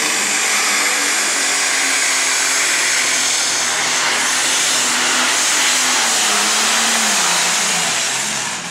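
John Deere super stock diesel pulling tractor running flat out under load, a dense, loud engine noise with a high turbocharger whistle over it. Near the end the engine pitch falls and the sound drops away.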